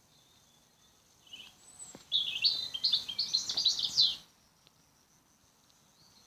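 A songbird singing a quick, jumbled series of high chirps and warbles for about three seconds, starting about a second in.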